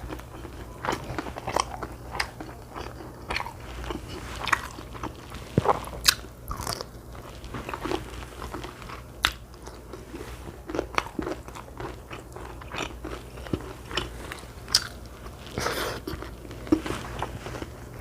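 Close-miked eating sounds: irregular chewing and biting with many short, sharp clicks and crunches.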